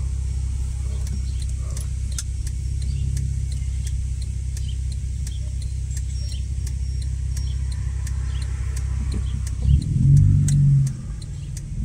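Muffler-deleted 3.5-litre V6 Honda Accord exhaust running with a steady low drone, with a light ticking throughout. About ten seconds in it turns louder and uneven in surges as the throttle opens.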